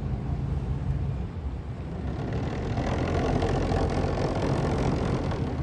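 Motor yacht's engines giving a low, steady rumble as it cruises slowly past. A louder rush of noise swells about two seconds in and fades near the end.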